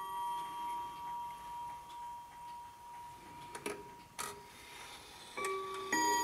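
Gong chime of a Zaanse wall clock: a struck gong note rings on and slowly fades, followed by a couple of sharp clicks about halfway through as the clock's hands are turned by hand. Near the end, two fresh gong strikes of slightly different pitch ring out.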